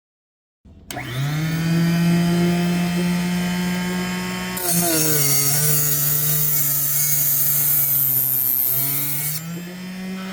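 Small electric motors whirring at a steady pitch after a quick spin-up, stepping lower about halfway through and rising again near the end, with a hiss of air while they run lower.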